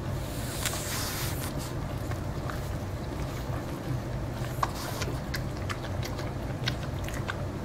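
French bulldog biting and chewing kernels off a cooked corn on the cob held in front of it, with irregular crunching clicks over a steady low hum.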